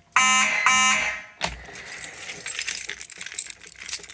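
Fire alarm horn sounding two short, loud blasts about half a second apart, then stopping.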